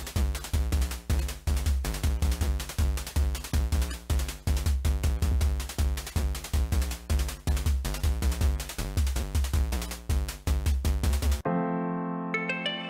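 Electronic background music with a steady drum-machine beat and heavy bass. About eleven seconds in it cuts suddenly to a soft, slow electric-piano tune.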